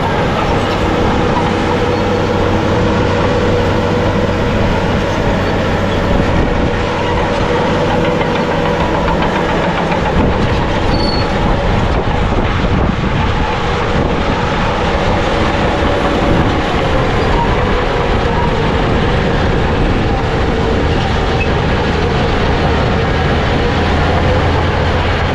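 Bulldozer's diesel engine running steadily under load. A low engine note drops back about ten seconds in and returns near the end.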